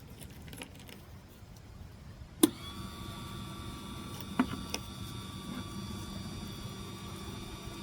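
Glass-and-ceramic wet sander with a diamond bit switched on with a click about two and a half seconds in, its small electric motor then running with a steady whine and hum.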